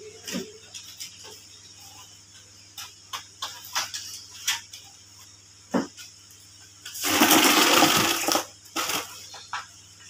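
Scattered clicks and knocks from hands working on an opened HP 126NW laser printer. About seven seconds in comes a loud, noisy burst of about a second and a half.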